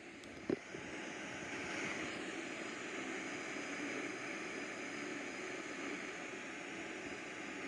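A click about half a second in, then a steady hiss of static.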